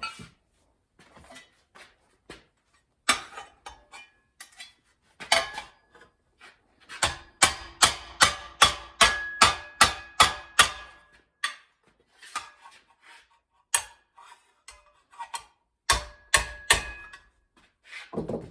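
Hand hammer striking sheet steel to form a patch panel: scattered blows, then a quick run of two to three blows a second partway through, the metal ringing after the hits.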